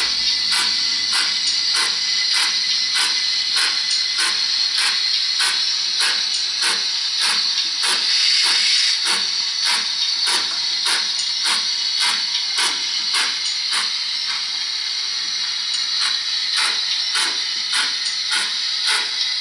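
Hornby GWR 28xx class 2-8-0 model locomotive's Zimo MX648R DCC sound decoder playing a steam locomotive sound through a small speaker in the tender: steady chuffing at about two beats a second over a continuous steam hiss.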